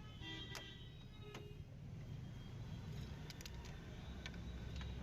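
Faint, scattered metallic clicks and taps of hand tools working on the scooter's side panel, over a low steady hum.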